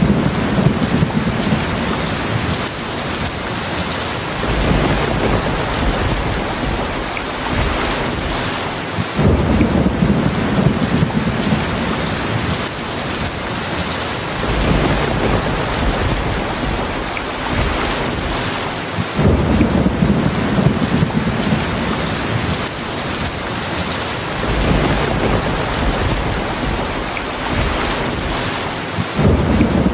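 Heavy rain falling steadily, with low rumbling thunder that swells about every five seconds.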